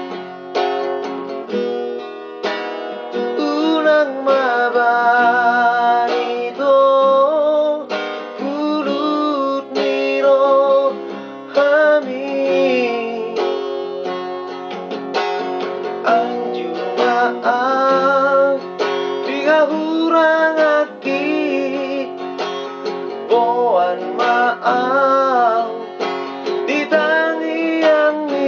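Acoustic guitar strummed while a man sings along, his held notes wavering in pitch.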